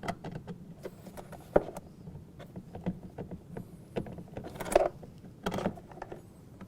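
Small Phillips screws being started and turned into a plastic housing with a screwdriver: irregular clicks and scrapes of metal on plastic, with a sharp click about one and a half seconds in and busier handling near the end.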